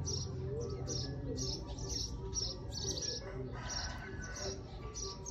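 Bird chirping over and over in short, high, evenly spaced chirps, about two a second.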